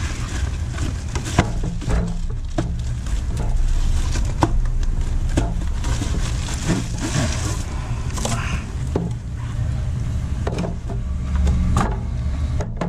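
Cardboard packaging being handled: an inner carton scraped and slid out of an outer box, with irregular rustles, scrapes and small knocks over a steady low rumble.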